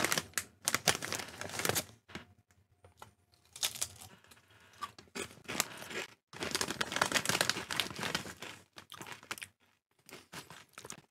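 A crinkly Doritos chip bag being torn open and rustled, in several bursts of crackling a second or two long.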